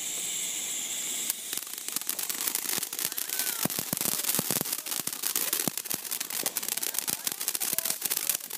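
Ground fountain firework spraying sparks: a steady hiss for about the first second, then dense, rapid crackling as its crackling stars go off.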